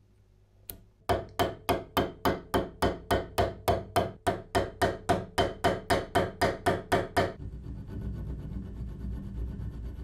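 Small hammer peening rivets over on a bench vise's steel anvil: a quick, even run of light metal taps, about four or five a second for some six seconds, after a single tap, then stopping abruptly.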